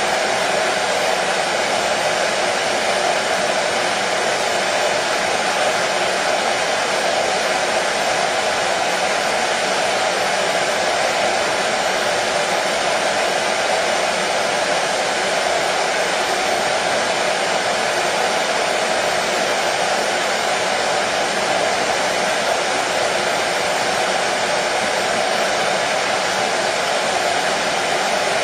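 Hair dryer running steadily: a constant, unchanging whoosh of fan and airflow noise.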